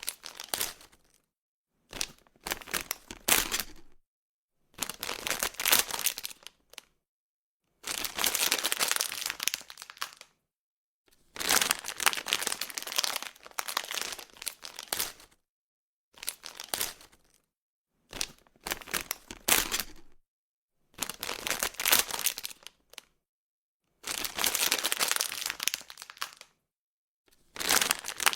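Plastic bag being crumpled and crinkled by hand in about ten separate handlings of one to three seconds each, with short silences between.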